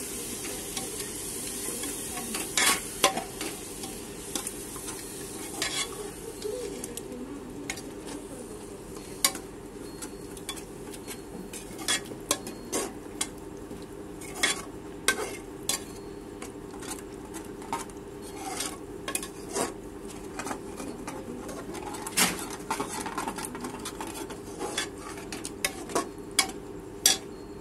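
A metal ladle stirring and scraping a sizzling onion-tomato masala in a pressure cooker. Steady frying sizzle under frequent sharp clinks of the ladle against the pot.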